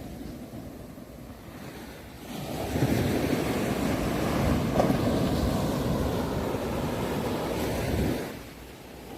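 Sea waves breaking on the shore: a quieter wash, then a wave surges in about two seconds in, rushes for several seconds, and ebbs away near the end.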